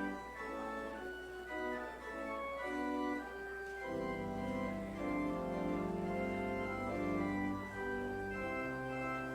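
Church organ playing the postlude after the benediction: a melody of held notes, with deep pedal bass notes coming in about four seconds in.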